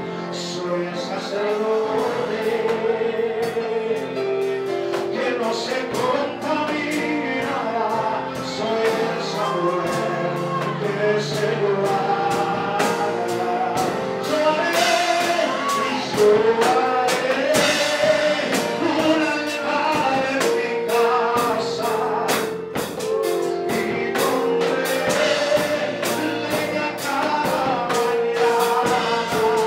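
Man singing a gospel worship song into a microphone over instrumental backing music, holding long notes.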